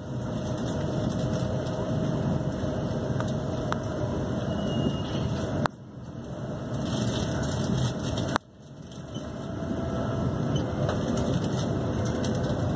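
Interior running noise of a Class 350 electric multiple unit at speed: a steady rumble of wheels on rail with a faint steady tone over it. The noise drops out abruptly twice in the middle and swells back each time.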